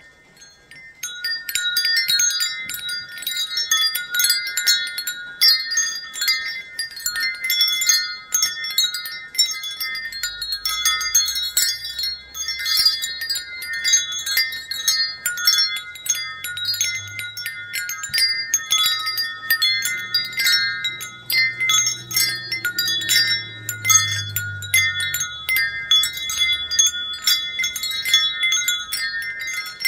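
Wind chimes ringing: many overlapping high metal tones struck at random, starting about a second in after a brief lull. A faint low hum sits underneath through the middle stretch.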